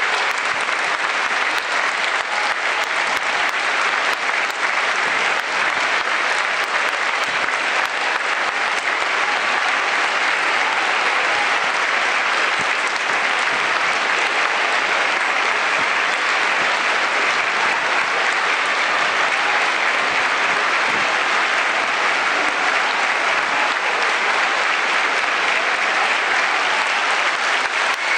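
Large stadium crowd of football supporters applauding steadily, a dense unbroken clapping from the stands.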